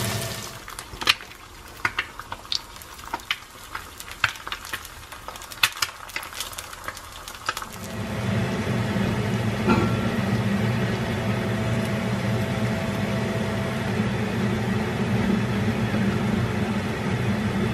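An egg frying in hot oil, a soft sizzle with many sharp irregular pops and spits. About eight seconds in this gives way to a steady low hum, with a few light knocks.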